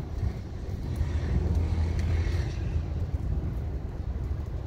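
Thunderstorm rumble: a low roll of thunder that swells about a second in and fades after the middle, over the steady low buffeting of wind on the microphone.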